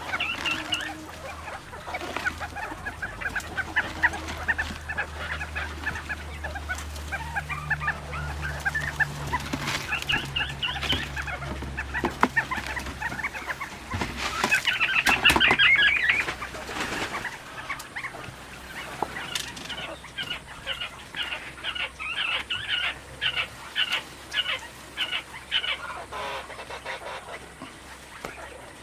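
A flock of poultry clucking and calling continuously in many short overlapping calls, swelling loudest about halfway through, then settling into quick repeated calls. A low steady hum runs under the first half.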